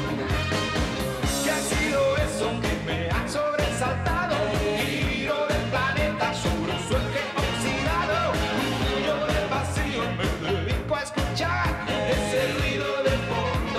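Male lead singer singing a pop-rock song over a full rock band with a steady drum beat.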